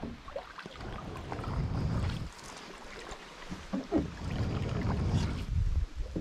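Canoe paddle strokes pulling through lake water, with drips and splashes off the blade. Two stronger surges come about three seconds apart. Gusts of wind rumble on the microphone.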